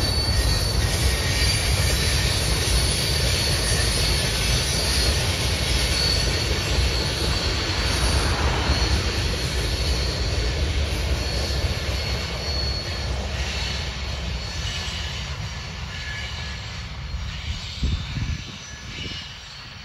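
A CPKC freight train rolling past, a steady rumble with thin high wheel squeals. It fades over the last several seconds.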